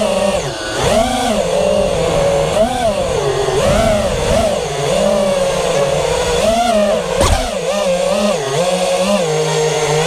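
Brushless motors and propellers of a quadcopter with 2650 kV motors, heard from its onboard camera: a loud whine whose pitch rises and falls constantly with the throttle. There is one brief click about seven seconds in.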